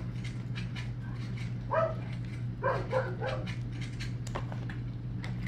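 Biting into and chewing a Chick-fil-A Deluxe fried chicken sandwich, with many small clicks of chewing over a steady low hum. A few short high-pitched whines sound about two and three seconds in.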